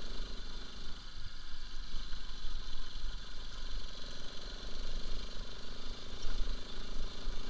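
Bajaj Pulsar RS200's single-cylinder engine running steadily as the bike rides along a rough dirt track, with wind rumbling on the microphone.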